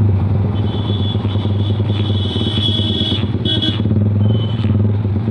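Motorcycle engine running steadily while riding along at an even pace.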